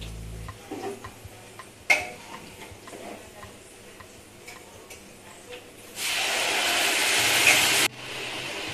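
Light clinks of a steel ladle against steel cookware on a gas stove, with one sharper metal clink about two seconds in. Near the end a loud, steady hiss runs for about two seconds and cuts off suddenly.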